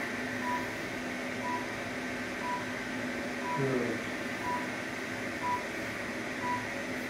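Therapy laser unit giving short, evenly spaced beeps about once a second, the audible tone that sounds while its handheld probe is emitting, over a steady electrical hum.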